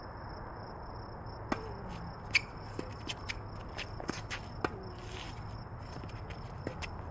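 Tennis balls struck by rackets and bouncing on a hard court during a rally: a series of sharp pops, several in quick succession, the loudest about two and a half seconds in.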